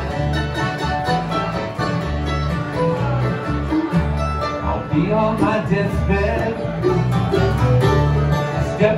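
Live acoustic bluegrass band playing an instrumental passage without vocals: upright bass, mandolin, acoustic guitar, five-string banjo and accordion. A livelier lead line comes forward about halfway through.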